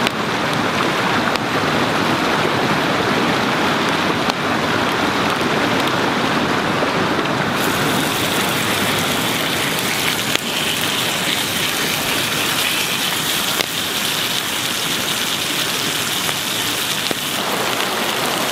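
New York strip steaks sizzling in a cast iron skillet over a campfire: a steady, dense hiss that turns brighter and sharper about eight seconds in.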